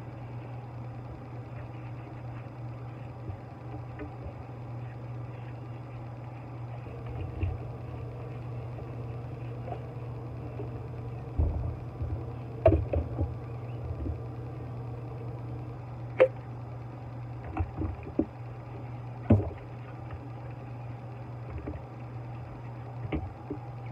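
Dishes being washed by hand: a sponge scrubbing a plastic cup, with scattered knocks and clunks of dishes against the sink, the loudest about halfway through, over a steady low hum.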